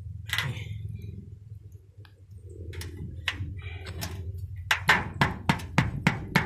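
Hammer blows driving a nail through the flange of a metal roof vent into an asphalt-shingle roof: a quick run of sharp strikes, about three a second, starting near the end.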